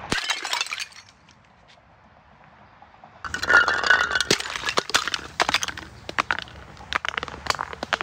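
Glass bottles breaking: a brief clatter, a pause of about two seconds, then a loud shattering burst followed by scattered clinks of glass shards.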